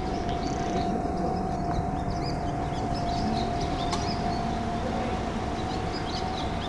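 Street ambience with a low rumble of traffic and an Enoden train approaching on the street track, small birds chirping, and a steady high electronic tone.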